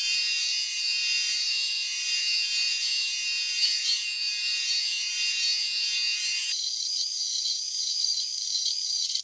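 AI-generated nature ambience of insects chirring, a steady, dense, high-pitched drone. About two-thirds of the way through, its lower layer drops away, leaving only the highest part.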